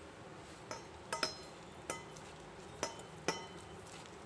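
Light clinks against a stainless steel bowl as a hand starts mixing wheat flour and water into dough in it: about six separate clinks, each with a short metallic ring.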